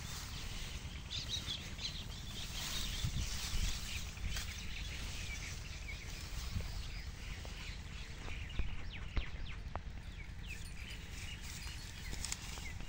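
Rural outdoor ambience: small birds chirping in the background over a low steady rumble, with a few sharp clicks in the second half.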